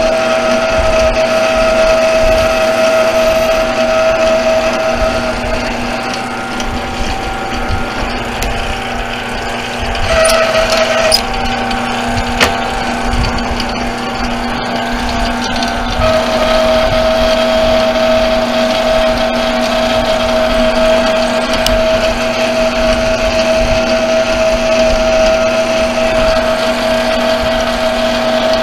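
Small 8x12 bench metal lathe running at a steady speed, its motor and gears giving a steady whine as the brake rotor hub turns in the chuck. A few sharp clicks sound about ten to twelve seconds in.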